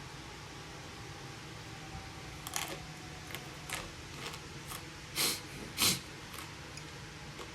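Steady low room hum, with a scatter of short, sharp noises; the two loudest come about five and six seconds in.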